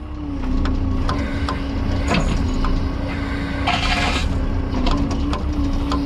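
Cat 305.5E2 CR mini excavator's diesel engine running with a steady hum while the hydraulics move the stick and curl the bucket, which is locked on its quick coupler. Light clicks and knocks run through it, with a short hiss about four seconds in.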